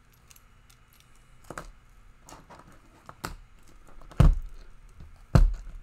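Small metal challenge locks and packaging being handled: scattered light clicks and rustling, then two sharp knocks about a second apart near the end as things are set down.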